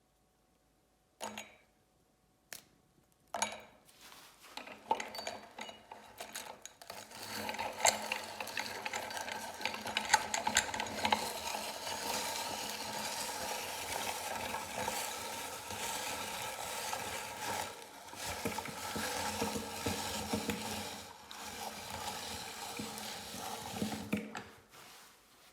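A few sharp clicks, then a meat grinder crushing Oreo cookies: a continuous crunching and scraping that begins about four seconds in and stops shortly before the end.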